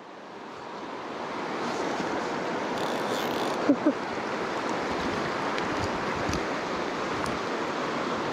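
Fast creek water rushing steadily over rocks, swelling up over the first two seconds and then holding steady. Two brief pitched sounds break through about four seconds in.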